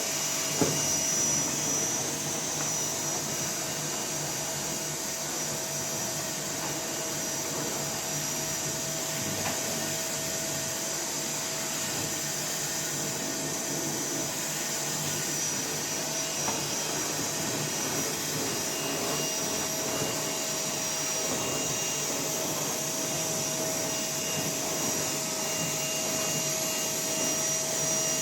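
A steady machine whir that does not change, with a thin high whine and a lower hum held over a noisy rush. A brief knock comes about half a second in.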